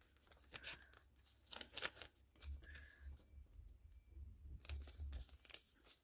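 Faint, scattered rustling and light clicks of paper scraps being handled and laid down for collage.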